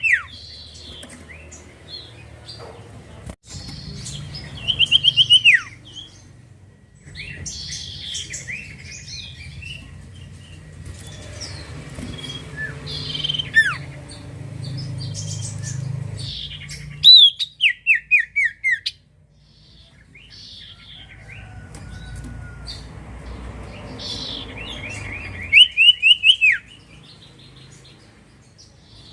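Common iora (cipoh) calling: loud bursts of rapid, down-slurred whistled notes, repeated several times, with softer chirps between them.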